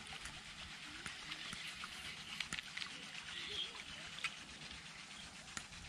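Faint outdoor pond-bank ambience with a few scattered short, sharp ticks.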